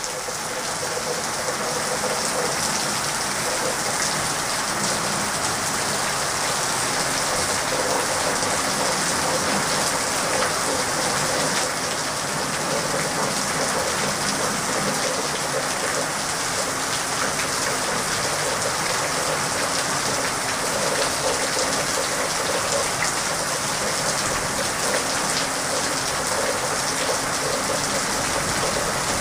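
Steady rain falling and splashing on the ground, an even, unbroken hiss.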